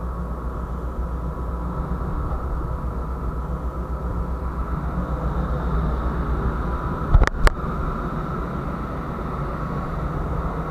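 Steady low hum of a ship's machinery heard on deck, with a few faint steady tones. About seven seconds in come two sharp knocks close together.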